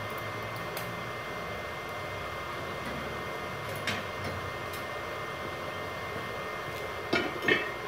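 Multipro 450-watt IGBT inverter welding machine switched on and idling, its cooling fan running with a steady, smooth whir and a thin steady high tone. There is a short sharp sound about halfway, and two brief louder sounds near the end.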